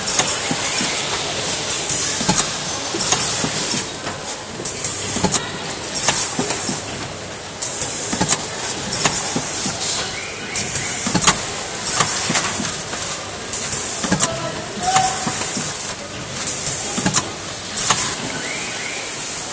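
Multi-track machine with a traversing inkjet printer running: a steady mechanical noise with a thin, high, steady whine, broken by irregular sharp clacks and knocks.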